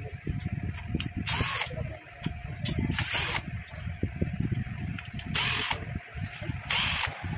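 A screwdriver working screws out of an inverter's aluminium heatsink, with steady metallic clicking and rattling. Four short hissing scrapes come at intervals of about one and a half to two and a half seconds.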